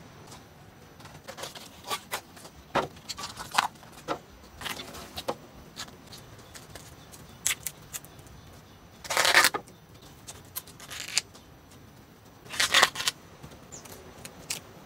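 Hands peeling the bracts off a banana blossom and pulling apart its florets: scattered small snaps and rustles, with two longer, louder rustles about nine and twelve and a half seconds in.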